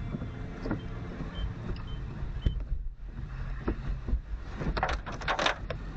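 Car cabin noise while driving: a steady low rumble from the engine and tyres, with scattered light clicks and a brief hiss about five seconds in.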